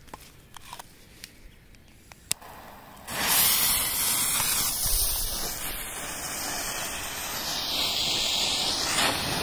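Smoke fountain catching about three seconds in and hissing loudly and steadily as it pours out blue smoke, after a few light clicks of handling.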